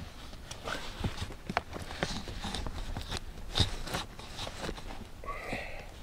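Irregular light clicks and taps of hands working around the plastic floor trim and seat base beside a rear seat belt buckle, with a short murmur a little after five seconds in.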